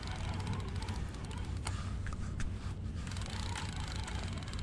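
Daiwa spinning reel being wound in against a hooked conger eel: a few faint clicks over a low steady rumble.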